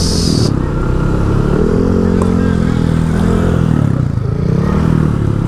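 Street traffic: a motor vehicle engine running close by, its pitch rising for a couple of seconds and then falling back, over a steady low rumble of traffic.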